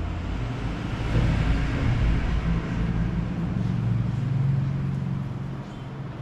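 A motor vehicle's engine running as it passes by, growing louder about a second in and fading near the end.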